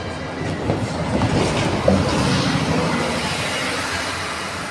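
Manchester Metrolink Bombardier M5000 tram rolling slowly along street track: a steady running rumble that swells to its loudest about two seconds in, then slowly eases, with a couple of sharp clicks from the wheels on the rails.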